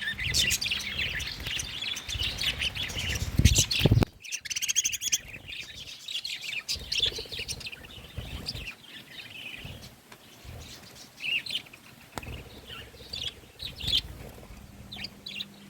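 Several budgies chirping and chattering, many short high calls overlapping. A low rumble runs under the first few seconds and cuts off abruptly about four seconds in, after which the chirping is sparser.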